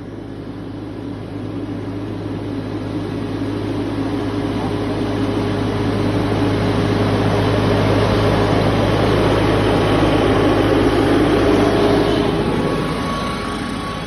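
Tractor engine running as the tractor passes close overhead, pulling a hole-punching machine across plastic mulch. It grows steadily louder to a peak about twelve seconds in, then eases off.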